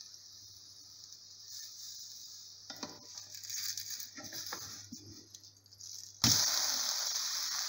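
Pancake batter sizzling faintly in a hot non-stick frying pan, with a wooden spatula scraping and tapping around the pan as it loosens and lifts the pancake's edge. A much louder, steady hiss starts abruptly near the end.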